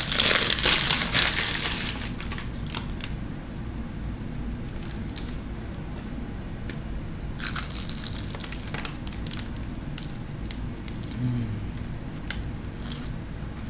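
A paper bag crinkles for about two seconds as a fried veggie egg roll is pulled from it. Then come sharp crackly crunches of bites into the egg roll's crisp wrapper, loudest about seven seconds in, with quieter chewing and rustling between.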